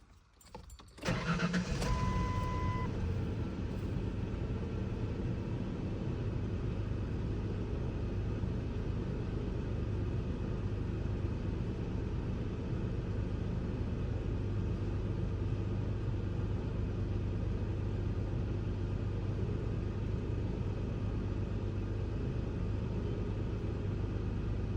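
2001 Ford Ranger engine cranking and catching about a second in, then idling steadily, now running on all cylinders after a dead ignition coil was replaced. A short electronic beep sounds just after the start.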